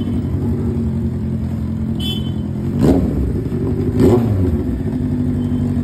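Kawasaki Z800's inline-four engine idling, blipped twice, about three and four seconds in, each rev rising and falling sharply in pitch.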